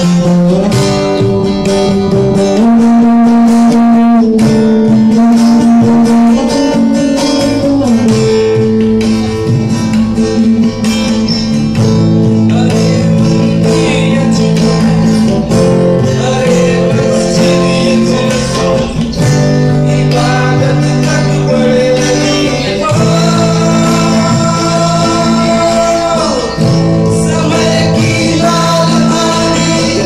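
Live acoustic band music: several strummed guitars with a male singer and tabla.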